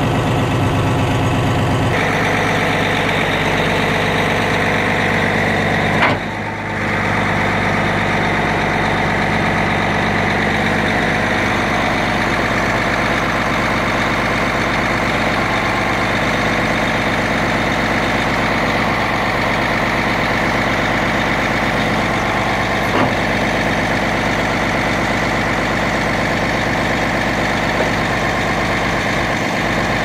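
Caterpillar D8T dozer's C15 six-cylinder diesel running steadily while the hydraulic ripper is worked. A higher whine joins the engine sound about two seconds in, and there is a single sharp knock about six seconds in.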